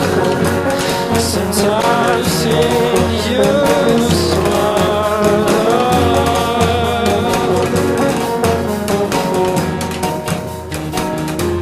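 Background music: a song with a wavering melody line over a steady beat.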